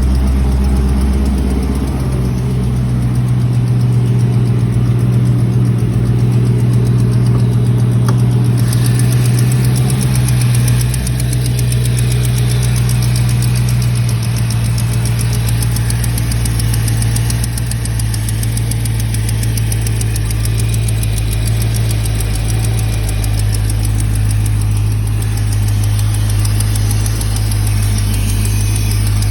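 Hemi V8 engine idling steadily with a rapid tick over the engine hum, the noise known as the 'Hemi tick'. The ticking grows more prominent about eight seconds in.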